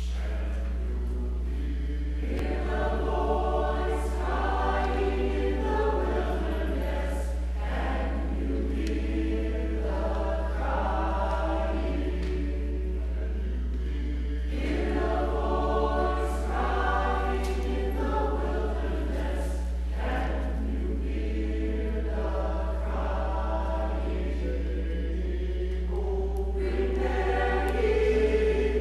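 Mixed church choir singing in parts, the phrases swelling and easing, over a steady low hum.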